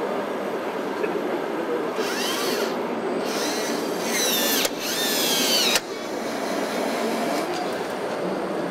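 High-pitched whine of a radio-controlled model's small electric motor and gearbox, rising and falling in pitch as it speeds up and slows, over a steady hall murmur. It comes in from about two seconds in and cuts off sharply twice, near five and six seconds in.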